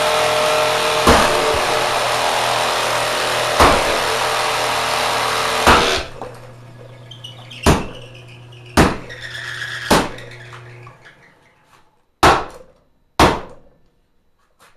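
Kenmore sewing machine driven by a swapped-in 3/4 hp motor, running loud and over-speed with sharp knocks from its worn-out mechanism, then shut off about six seconds in. A fainter hum fades out over the next few seconds, and several loud, sharp knocks or bangs follow, the last two the loudest.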